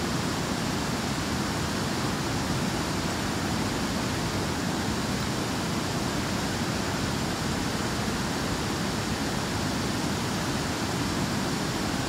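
Waterfall rushing steadily: an even, unbroken wash of falling and fast-flowing water.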